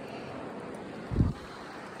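Steady rush of stream water flowing past rocks, with a brief low thump about a second in, the loudest moment.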